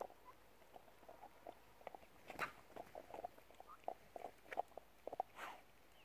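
A ridgeback dog gnawing and chewing on a bone-like object: a faint, irregular run of small crunches and clicks, with a couple of louder crackling crunches.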